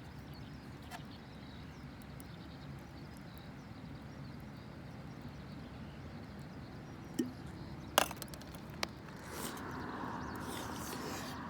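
Wood campfire crackling, with a few sharp pops in the second half and a steadier, louder noise from about nine seconds in.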